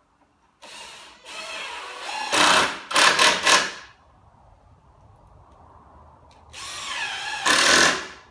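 Cordless drill running under load into the wooden top of a shelf unit, in two bursts. The first lasts about three seconds and ends in a few quick stutters; the second, shorter one comes near the end.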